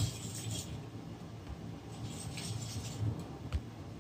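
Wire whisk beating eggs and sugar in a glass bowl: faint scraping with a few light clinks of the wires against the glass.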